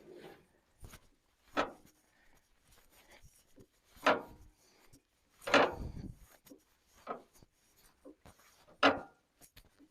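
A run of separate knocks and clunks from hands-on work on a portable bandsaw mill, about six in all, the loudest near the middle with a low thud.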